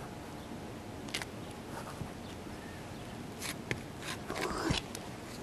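Scattered light scrapes, crinkles and taps as a gloved hand presses a foil-faced patch down onto wet roofing cement on a flat roof. There is a denser run of them from about three and a half to five seconds in.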